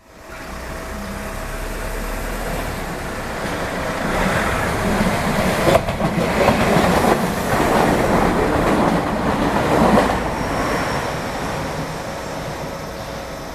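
A Tokyu Ikegami Line electric train passing over the level crossing, its wheels clattering over the rails. The sound builds, is loudest through the middle, and fades away near the end.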